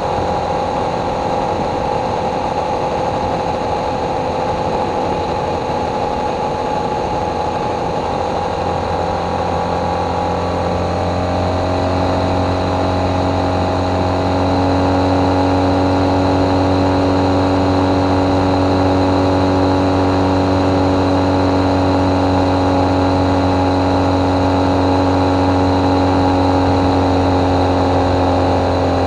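Motorcycle engine running at cruising speed, with a steady engine note. About ten to fifteen seconds in, the note rises a little and gets louder, then holds steady.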